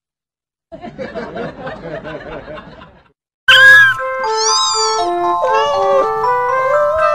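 About a second in, a couple of seconds of laughter. After a short gap, a loud music tune with stepped and sliding notes starts and carries on.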